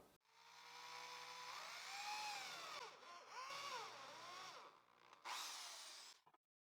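Electric drill with a 3 mm bit and 8 mm countersink boring into pine, heard faintly. Its motor whine rises and falls in pitch over three short spells of drilling.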